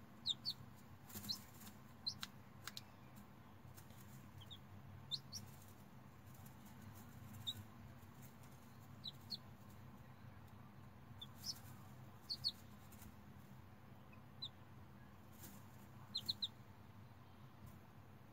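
Faint, high peeping of a newly hatching chicken chick: short, falling chirps scattered every few seconds, some single and some in quick runs of two or three.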